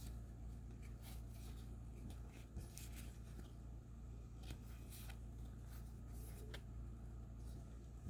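Trading cards being handled and sorted by hand: faint, irregular clicks and slides of card stock, over a steady low hum.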